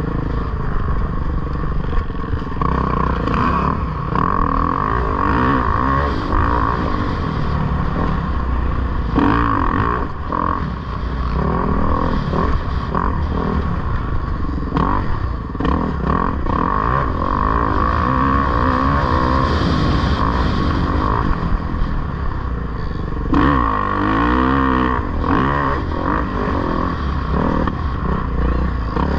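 2011 Kawasaki KX450F dirt bike's single-cylinder four-stroke engine running hard under race riding. Its pitch rises and falls as the throttle opens and closes, most plainly about three-quarters of the way through.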